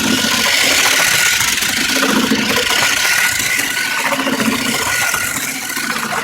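Electric remote-control toy car running, its small motor and gears giving a steady high whine over a rattling mechanical noise.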